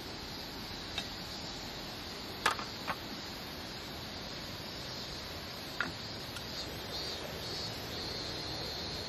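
A few light knocks of a metal hot sandwich maker being set down on a camp table, the two loudest close together about two and a half seconds in and another near six seconds, over a steady high outdoor hiss.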